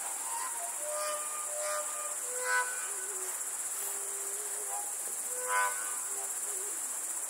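Podbrezová fujara, a long Slovak overtone flute, playing a slow melody of clear held notes, stepping down in pitch, with two short, louder overtone-rich flourishes about two and a half and five and a half seconds in. Crickets chirr steadily underneath.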